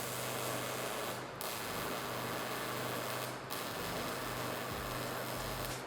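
MIG welding torch arc running with a steady, noisy hiss, broken by two short gaps about one and three and a half seconds in.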